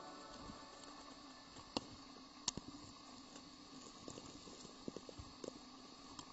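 Faint footsteps on dry leaf litter and sticks: scattered soft crunches and a few sharp twig snaps, two of them louder near the middle.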